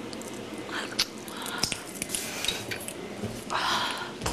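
Cowboy-boot heels clicking on a tiled floor, a few scattered steps and small knocks, with a short rustling noise near the end that is the loudest sound.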